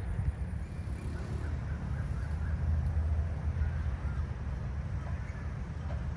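Uneven low rumble of wind on the microphone, with faint small-bird chirps scattered through it.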